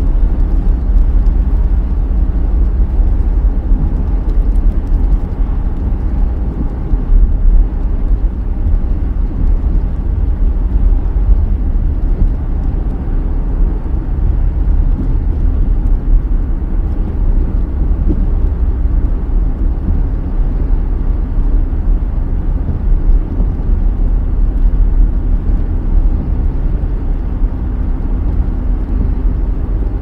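Car driving on a rain-wet road: a steady low rumble of tyres and engine.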